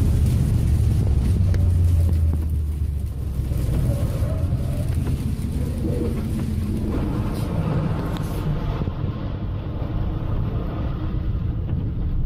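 Steady low rumble of engine and tyres on a wet road, heard from inside a moving vehicle. The rumble is strongest in the first few seconds, then eases slightly.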